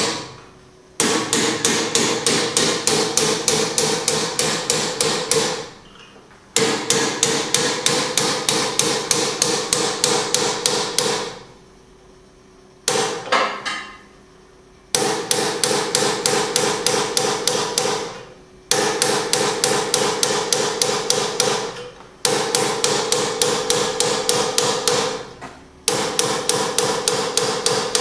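Hand stitching of a rasp: a small hammer strikes a pointed punch into a steel rasp blank about five times a second, raising one tooth per blow, each stroke with a metallic ring. The blows come in fast, even runs of several seconds broken by short pauses.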